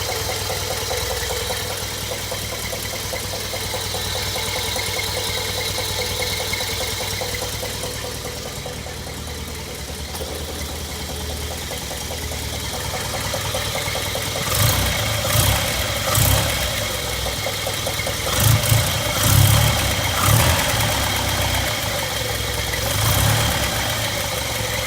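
A 1964 International Scout 80's four-cylinder engine idling steadily on fresh oil, not yet fully warmed up. In the second half a handful of short, louder low bumps rise over the idle.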